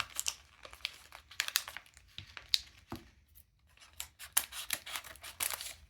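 A small plastic toy package being handled and opened: irregular crinkling with sharp clicks and snaps.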